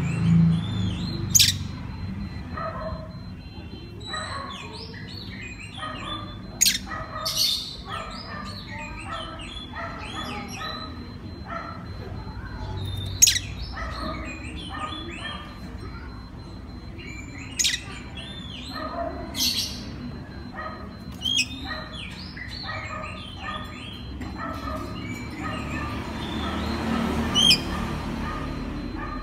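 Oriental magpie-robin singing a long, varied song of short whistled phrases and chirps, with a few sharp, loud notes now and then.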